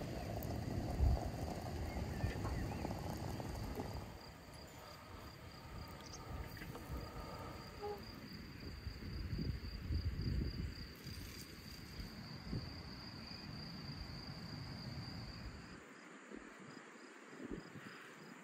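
Insects chirping in a steady, high-pitched pulsing trill, with low rumbling noise during the first few seconds.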